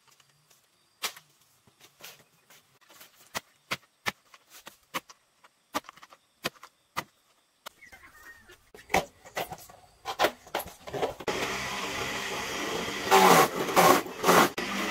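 A blade chops into banana plant stems in sharp single strikes, about one or two a second. About eleven seconds in, a motor-driven feed shredder starts running steadily, with louder grinding bursts as a banana stem is pushed into its chute.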